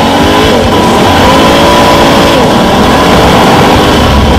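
Honda Africa Twin Adventure Sports' parallel-twin engine running under way on a gravel track. The engine note drops and climbs in pitch a couple of times as it is ridden.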